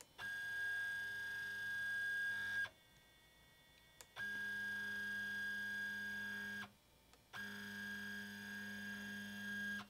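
Elegoo Neptune 2S 3D printer's axis stepper motor moving the carriage in three runs of about two and a half seconds each, a steady whine with a high tone. The printer stands on high-density dampening foam: the high-frequency sound is still there but the low-frequency noise is damped out.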